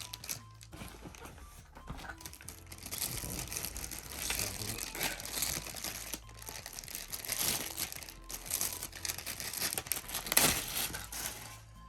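Packaging crinkling and rustling in irregular bursts as the phone holder's stand is unwrapped and handled, loudest about ten seconds in.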